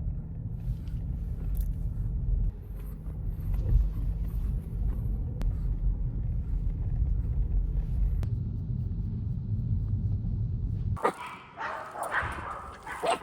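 A steady low rumble that cuts off suddenly about eleven seconds in, followed by a dog barking and yipping.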